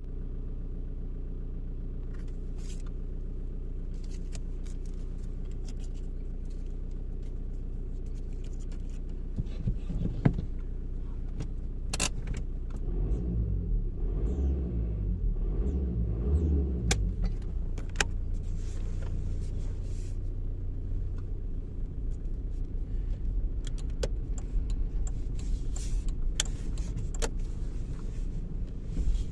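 VW Golf 4's 1.9 TDI AXR four-cylinder turbodiesel running, with short sharp high-pitched squeaks and ticks over the engine note. About ten seconds in it gets louder and the note shifts for several seconds before settling steady again. The owner traces a squealing whistle to the EGR valve and turbocharger area.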